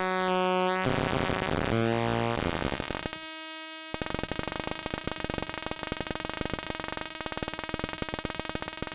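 Atari Punk Console, a 555-timer square-wave noise box, voltage-starved through a 10K variable resistor in its battery line. Its buzzy square-wave tone steps through jumps in pitch for about three seconds, holds one note for about a second, then breaks into a rapid crackling, sputtering pulse.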